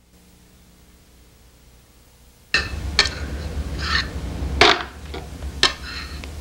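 Faint hiss for about two and a half seconds, then a spoon clinking and scraping against a bowl while eating, in a run of short, sharp knocks.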